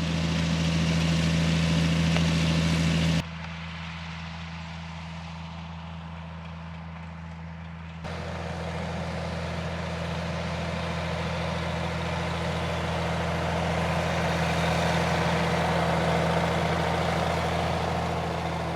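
Cebeco ZA 215 EH sugar beet harvester running steadily, its six-cylinder DAF diesel engine droning under the clatter of the machinery. The sound drops abruptly about three seconds in and comes back up about eight seconds in.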